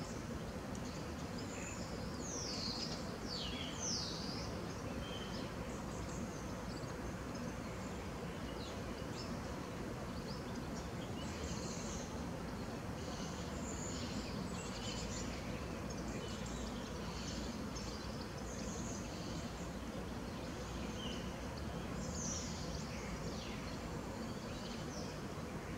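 Small birds chirping and calling over a steady outdoor background hum, with a few quick falling whistles about three seconds in and again near the end.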